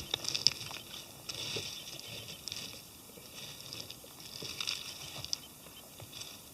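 Irregular dry crackling and rustling of twigs and leaves, a scatter of sharp little snaps with no steady rhythm.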